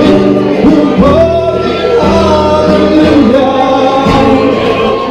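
Live music from an acoustic guitar and a melodic lead line, in a steady, continuous flow of held, gliding notes.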